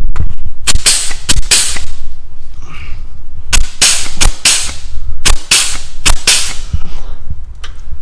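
Air-powered grease gun pumping grease into a grease fitting on a compact tractor's backhoe mount, giving about a dozen short hissing bursts in clusters of two to four.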